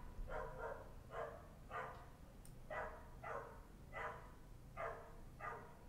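Faint dog barking over and over in the background, about nine evenly paced barks, a little more than one a second.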